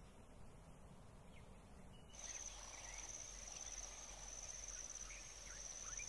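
Faint natural ambience with scattered soft bird chirps, joined about two seconds in by a steady high-pitched insect trill.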